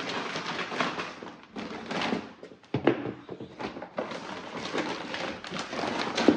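Household items being handled and set down: a run of knocks and thunks with rustling between them, and sharper knocks a little under 3 s in and near the end.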